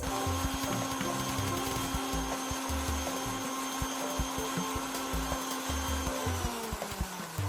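Electric blender motor running at a steady pitch, then slowing and winding down about six seconds in as it is switched off.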